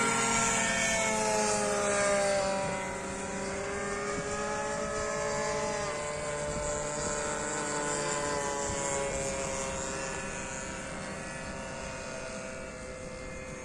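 Radio-controlled model warbird planes flying, their motors and propellers giving a steady drone that slides down and up in pitch as they pass. It is loudest at first and eases off after about two and a half seconds.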